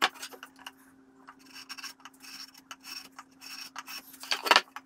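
Wheel marking gauge scratching along the edge of a wooden board in a series of short, light scribing strokes, with a louder scrape near the end.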